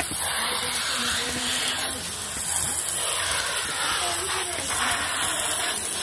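A thin, pressurised water jet from a homemade bottle sprayer, pressurised with a hand air pump, hissing steadily as it sprays onto a bicycle tyre and rim.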